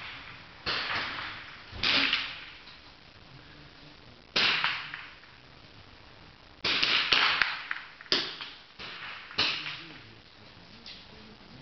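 Small-bore target rifles firing on a shooting line: about six loud, sharp shots at irregular intervals, with several fainter ones between, each cracking and then fading in a short echo.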